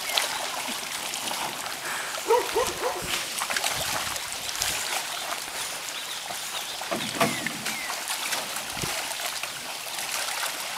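Water splashing and trickling around a canoe, with a few short pitched sounds about two and a half seconds in and again near seven seconds.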